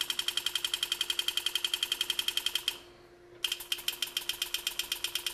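Enset pneumatic engraving handpiece hammering a graver through metal at about ten strokes a second as it cuts a line. The strokes stop for under a second a little past halfway, then start again.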